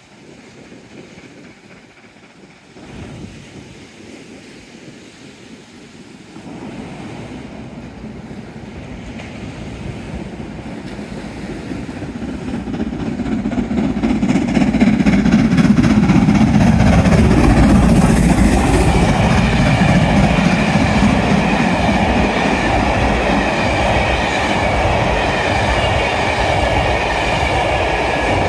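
Steam-hauled special train headed by LNER B1 4-6-0 No. 61306 Mayflower approaching and passing close by. It grows steadily louder from about six seconds in to a peak around fifteen seconds, then the loco and coaches keep rolling past at full volume.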